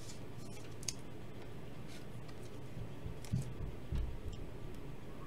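Handling of trading cards and a clear plastic card case: faint clicks and light rubbing, with two low thumps about three and four seconds in, over a steady low hum.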